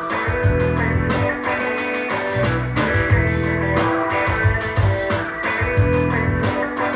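Recorded music with guitar over bass and drums in a steady beat, played back through a home-theatre system: an Onkyo TX-SA702 AV receiver driving Pioneer speakers and a powered subwoofer.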